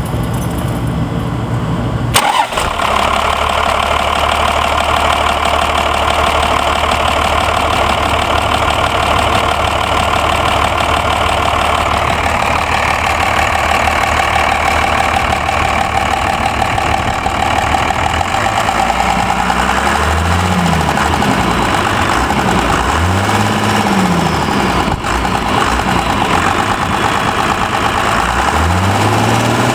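12-valve Cummins 5.9 L inline-six turbo diesel running with a light ticking, the engine freshly fitted with 60 lb valve springs and its valves just adjusted. Revved briefly a few times in the last third.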